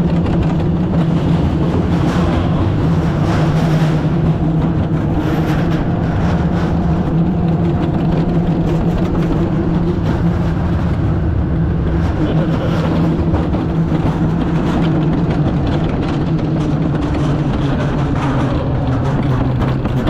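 Wiegand bobkart sled rolling fast down its stainless-steel trough: a loud, steady rolling rumble with a constant low hum.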